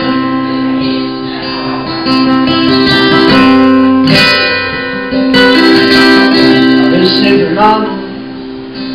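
Acoustic guitar strumming a blues accompaniment, its chords ringing on.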